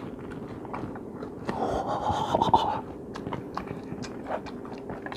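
Light clicks and scraping of a cooked king crab leg's shell as it is picked up and handled, with a short breathy rustle about two seconds in.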